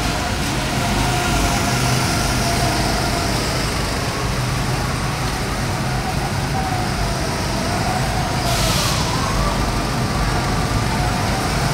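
Steady motor or vehicle drone with a low hum and faint wavering tones, and a short burst of hiss about eight and a half seconds in.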